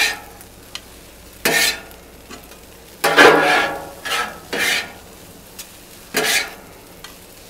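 Metal spatulas scraping and tossing fried rice on a Blackstone flat-top griddle, about five sharp scrapes, over a low steady sizzle.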